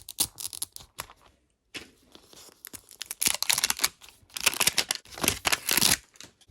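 Packaging being torn and crinkled as a toy capsule is opened: a few sharp clicks at first, then a long stretch of crackling rustle from about two seconds in.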